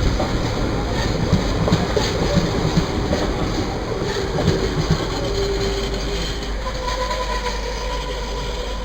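Express train coaches running through, their wheels clattering over rail joints with a faint wheel squeal in the middle and toward the end. The clatter is knocky in the first half and eases to a steadier rumble later.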